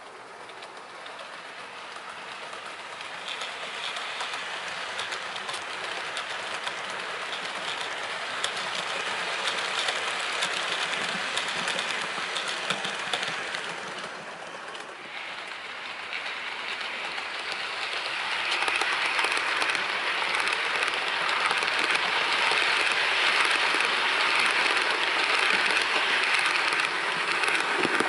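Bachmann OO gauge Class 90 model locomotive and its train running along the layout track: a steady rolling rattle of small wheels over the rails that swells as it nears, dips briefly about halfway, then grows loudest as the train passes close near the end.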